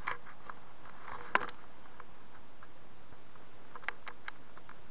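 Light clicks and taps from fishing tackle being handled while tying line, with one sharper tap about a second and a half in and a few more near the end, over a steady hiss.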